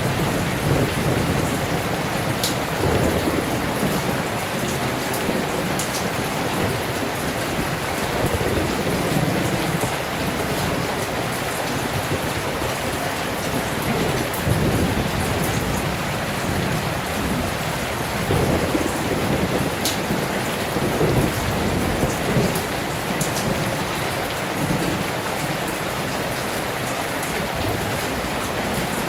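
Steady heavy rain with wind, rising and falling in low rumbling swells every few seconds, and a few sharp drip ticks over it.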